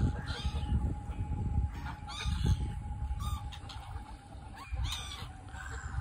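A crowded flock of ducks and other waterfowl on open water calling: scattered short quacks and honks, half a dozen or so across the few seconds, over a low rumble of wind on the microphone.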